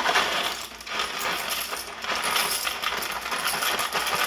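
Dry penne rigate pasta pouring out in a quick, dense rattle of clattering pieces.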